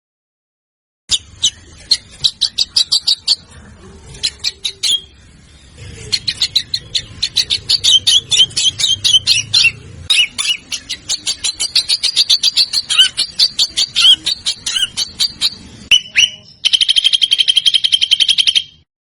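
Songbird singing fast runs of sharp, staccato notes, several a second, the rapid 'tembakan' style. It starts about a second in, and near the end it changes to a dense, steady trill that lasts about two seconds.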